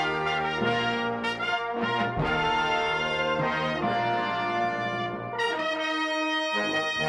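Orchestral music led by brass playing held chords that change every second or two.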